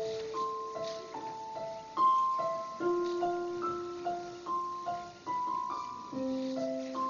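Slow piano playing: a simple melody of single notes, about two a second, over long held lower notes.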